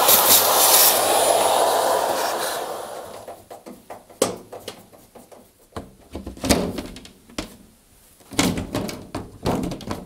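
Vacuum cleaner running as it sucks lint out of the inside of a tumble dryer, dying away about three seconds in. After it comes a series of separate knocks and thunks as the dryer's top cover is set back in place.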